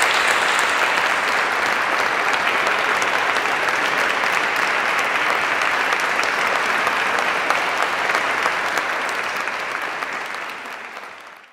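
Audience applauding steadily, easing slightly near the end and then cutting off abruptly.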